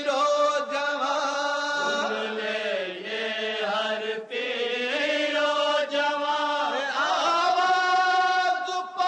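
Urdu noha, a Shia lament, chanted by a male reciter without instruments, in long held notes.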